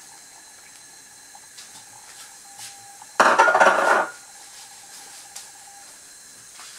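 Chopped onion, peppers and garlic scraped from a glass bowl into a nonstick frying pan of oil with a silicone spatula: one loud burst of rustling and clatter about three seconds in, lasting about a second, with faint light taps before it.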